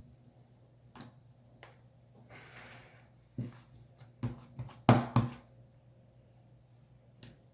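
Yellow cloud slime being handled, giving a series of short, sharp pops and clicks, the loudest two close together about five seconds in, with a soft rustle a little after two seconds.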